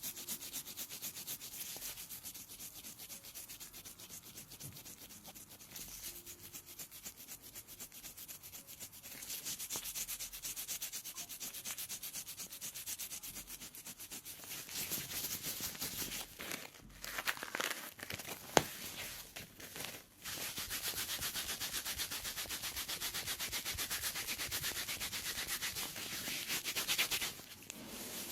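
A pedicure blade scraping dead, flaking skin from a foot with athlete's foot, in quick, rapid, repeated strokes. There is one sharp click about two-thirds of the way through.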